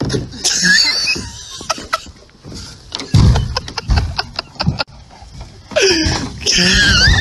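A Rottweiler knocking a hollow plastic kayak about on grass: heavy thuds and sharp knocks, with bursts of high squealing near the start and again near the end.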